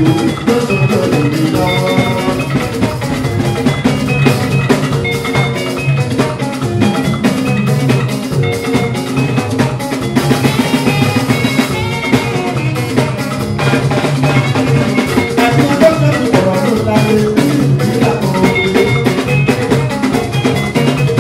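Band music with a steady drum-kit beat, bass and electric guitars.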